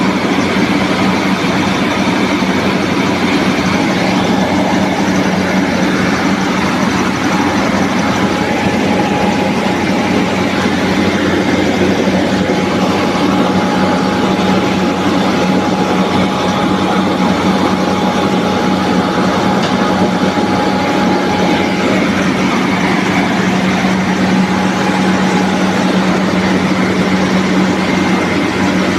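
NG 25D combined rice milling machine running: a loud, steady mechanical drone with a strong low hum that does not change.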